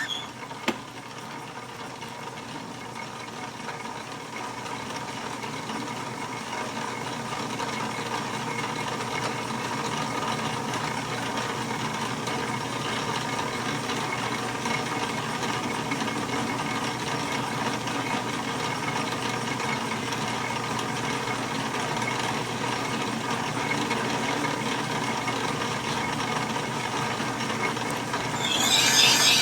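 1943 South Bend lathe running steadily under power, its motor and gear train humming with a few held tones. A single sharp click comes just under a second in, and the running sound builds over the first several seconds, then holds level.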